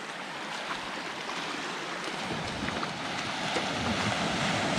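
Surf breaking and washing on the shore: a steady rushing noise that grows slowly louder, with a low rumble coming in about halfway through.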